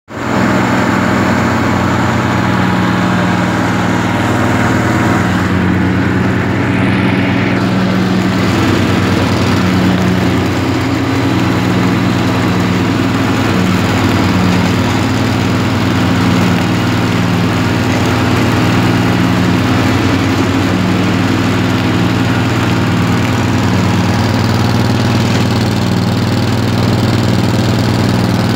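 Husqvarna ride-on mower's engine running steadily and loudly, heard close from the driver's seat.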